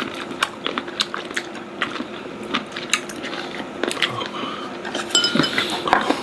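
Eating utensils clinking against dishes in scattered short clicks, with crunchy chewing of sea cucumber, over a faint steady hum.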